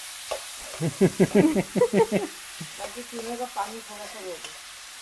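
Beef mince and onions frying in a karahi with a steady sizzle as they are stirred. A person's voice cuts in loudly about a second in and again more softly near the middle.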